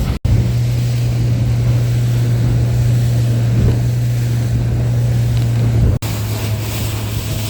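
Boat's outboard motor running at a steady speed, with wind on the microphone and water noise. The sound cuts out briefly twice, just after the start and about six seconds in.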